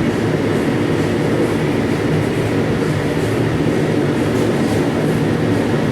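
Steady, loud mechanical rumble of running shop machinery in a power-hammer forge, with no distinct hammer blows standing out.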